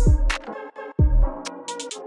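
Background electronic music: deep bass hits that slide downward in pitch, one at the start and one about a second in, with crisp hi-hat-like ticks between them.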